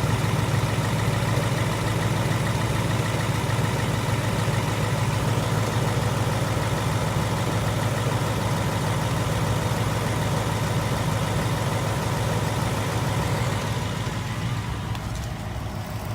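2018 Ford Mustang GT's 5.0 Coyote V8 held steady at about 1,500 rpm, running smoothly and quietly, with little injector ticking. The sound drops a little in level near the end.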